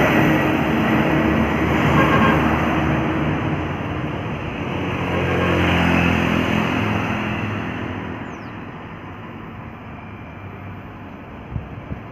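Engine of a heavy road vehicle, a bus or truck, running as it passes close by, loudest about six seconds in, then fading away.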